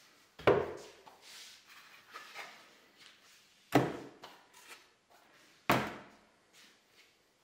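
Three thick wooden blocks set down one at a time on a workbench top. Each lands with a single wooden knock: about half a second in, near four seconds and near six seconds. Faint scuffs of handling come between the knocks.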